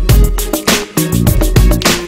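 Background music with a steady funky beat, strong bass and drums.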